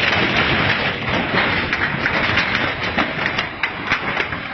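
Continuous loud rumbling clatter, with many sharp clicks and knocks rattling through it.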